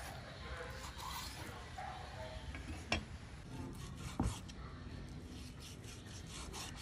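Cleaver slicing raw beef on a wooden chopping board. There is a sharp click near three seconds, a knock of the blade on the board a little after four seconds, then a run of soft, quick slicing strokes.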